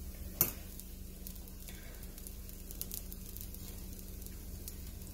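Semolina-and-wheat-flour pizza base sizzling faintly in a pan on low heat, with scattered small crackles and a sharper click about half a second in, as a spoon spreads sauce over it.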